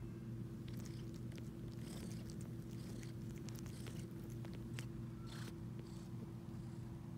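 Long-haired cat purring steadily while suckling on the fur of a sheepskin rug, with small scattered sucking clicks over the purr.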